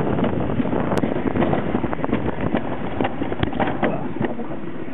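Wind rushing over the microphone and a bobsled rattling along its track, with many small knocks and clicks.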